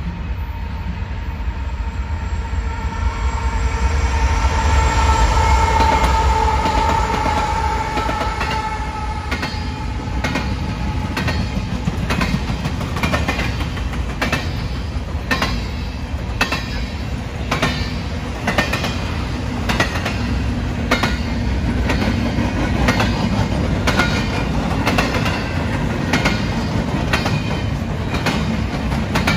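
BNSF freight train of empty intermodal well cars passing at speed. First comes deep rumble with a held chord of high tones that sags slightly in pitch, loudest a few seconds in. Then the empty cars rattle past with a steady clack of wheels, one or two a second.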